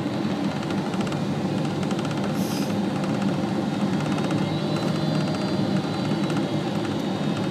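Steady cabin noise of a Boeing 777 on approach, from its turbofan engine and the airflow past the fuselage, with a faint high whine joining about halfway through.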